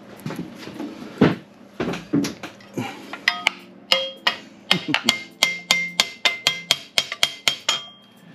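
Metal tapping on a carburetor lift plate on a V8 intake manifold, knocking a poorly fitting plate into place. It starts as a few irregular knocks, then settles about halfway through into a steady run of about four sharp taps a second, each one ringing.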